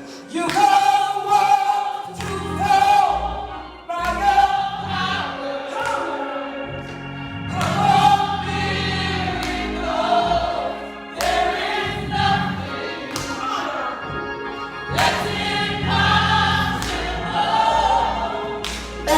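Gospel choir singing, with instrumental accompaniment that holds low bass notes under the voices.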